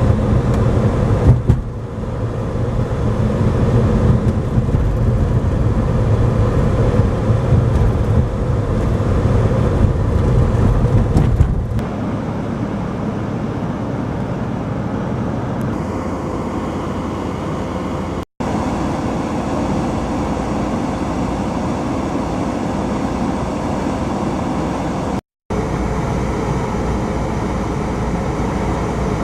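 A motor vehicle driving, with steady engine and road noise. It is louder for the first dozen seconds and then evener, and it drops out for an instant twice.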